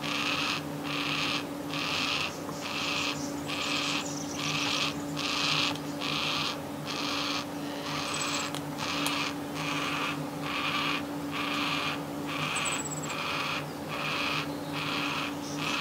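Young yellow-tailed black cockatoo begging for food: a harsh, rasping call repeated at an even pace, about three calls every two seconds.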